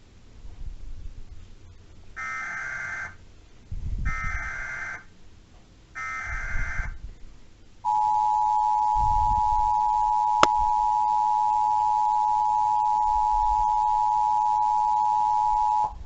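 Emergency Alert System tones: three bursts of about a second each of the SAME digital header data, then the two-tone EAS attention signal (853 and 960 Hz sounded together) held steady for about eight seconds, with a single sharp click partway through. The header bursts and attention tone mark the start of a Child Abduction Emergency (AMBER) alert.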